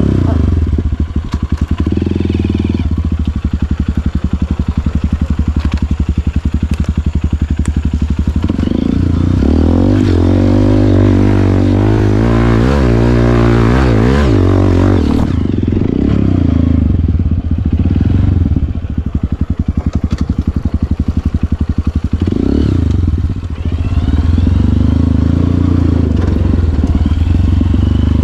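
Honda CRF150L dirt bike's single-cylinder four-stroke engine running while ridden, the revs rising and falling, busiest between about nine and fifteen seconds in.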